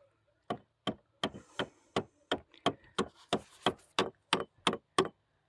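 Hammering: about fourteen sharp strikes in a steady rhythm, roughly three a second.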